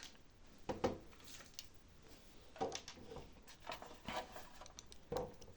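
A screwdriver loosening the side screws of a DVR's cover: a few faint, scattered clicks, scrapes and a light knock near the end.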